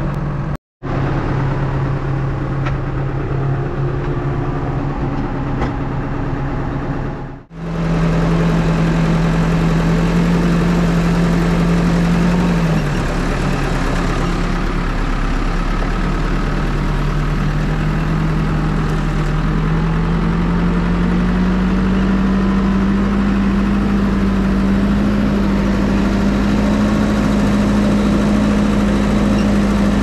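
Hepco HLB95B backhoe loader's diesel engine running steadily, broken by two brief dropouts in the first eight seconds. Its pitch dips slightly near the middle, then rises slowly over the last third.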